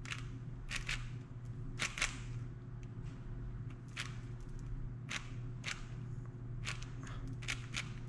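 Plastic puzzle cube being turned quickly by hand, its layers clicking in short irregular runs of sharp clacks as a solving algorithm is carried out.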